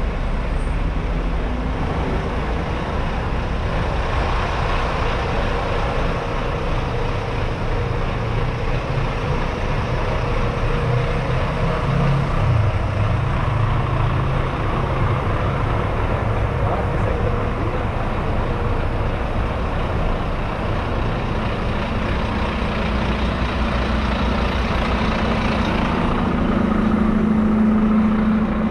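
Busy city-street traffic: cars and double-decker buses running past at close range. The steady hum of a double-decker bus engine grows louder near the end as the bus stands alongside.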